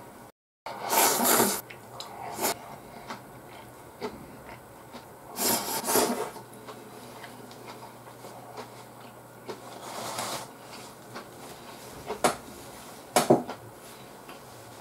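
Ramen noodles slurped from a bowl in three loud slurps about four seconds apart, with a few short clicks of chopsticks or tableware near the end.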